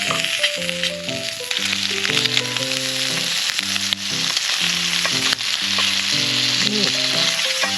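Food frying in a pan, a steady sizzling hiss, with background music playing underneath.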